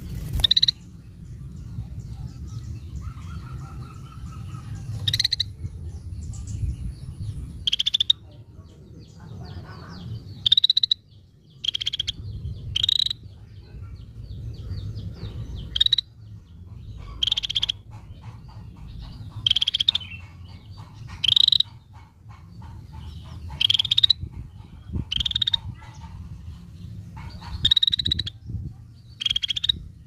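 Scaly-breasted bulbul giving short, sharp calls, repeated every second or two in irregular bouts, over a steady low background rumble.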